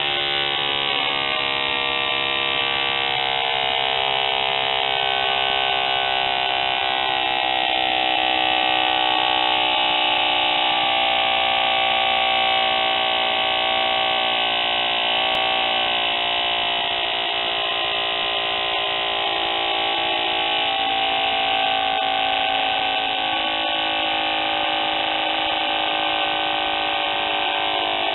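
Herkimer "OK" CO2 model motor running on a test stand, spinning a three-blade propeller: a steady high buzz whose pitch wavers slightly.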